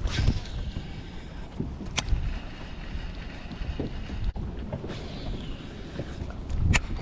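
Wind rumbling on the microphone over low boat and water noise, with two sharp clicks, one about two seconds in and one near the end.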